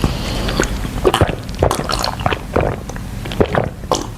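Wet eating sounds from seafood in a spiced sauce: chewing, sucking and lip smacking, in a run of irregular smacks and clicks.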